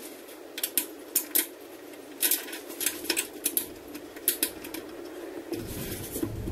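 Clicks and clinks of a roof-rack shovel holder bracket as it is handled and fitted onto the rack's rail: a dozen or so sharp, separate clicks. A low rumble comes in near the end.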